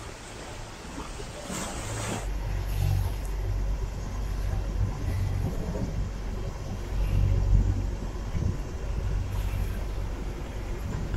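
Low, uneven rumble of wind buffeting the microphone on a moving boat, setting in suddenly about two seconds in.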